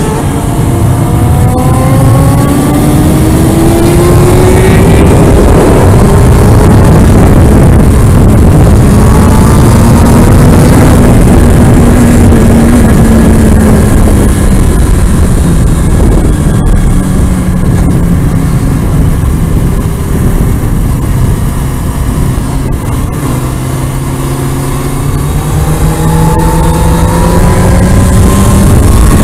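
Kawasaki Ninja ZX-6R's inline-four engine at track speed under a heavy rush of wind on the helmet microphone. The engine note climbs over the first few seconds, sinks as the bike slows around the middle, and climbs again near the end as it accelerates.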